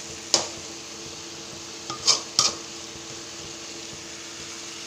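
A metal ladle knocking against a metal cooking pan (kadai): three short clinks, one near the start and two close together about two seconds in. A steady low hum runs underneath.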